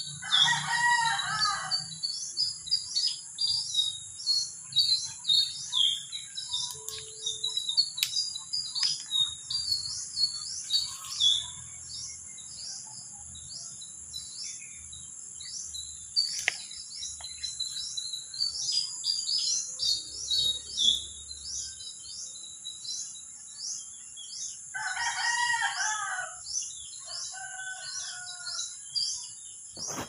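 Small birds chirp rapidly and without a break over a steady high insect buzz. A rooster crows twice, once right at the start and again about 25 seconds in, with a shorter call just after the second crow.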